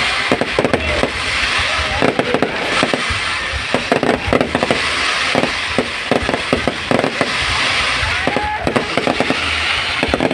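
Fireworks display: a dense, irregular run of sharp bangs and crackles from bursting shells over a constant hiss.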